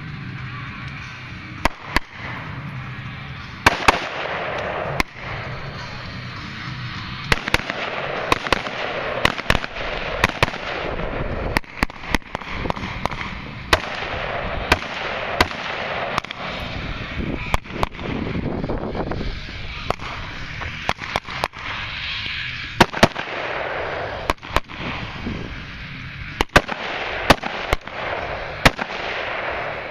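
AR-15 carbine firing: dozens of sharp gunshots at irregular spacing, singly and in quick pairs, as the shooter engages targets from cover.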